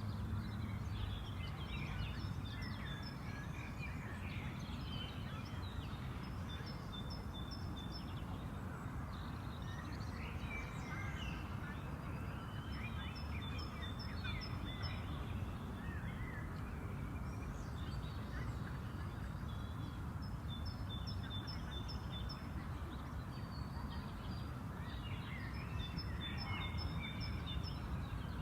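Several birds singing and chirping, with short repeated notes and trills throughout, over a steady low background rumble.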